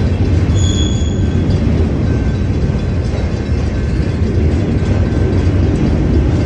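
Autorack freight train cars rolling along the track, a steady low rumble of wheels on rail, with a brief faint high squeal about a second in.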